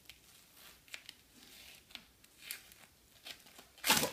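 Plastic bag and tape crinkling and rustling as hands pick at the wrapping around a wrist, with scattered small clicks; near the end a sudden loud rip as the wrapping is torn away.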